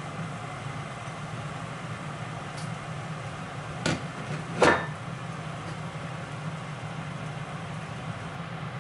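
Steady machine hum, with two sharp knocks under a second apart near the middle; the second is louder and rings briefly.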